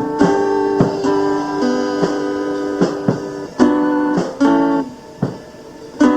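Acoustic guitar strummed, chords ringing between sharp strokes, with no singing; the sound drops quieter for about a second near the end before a fresh strum.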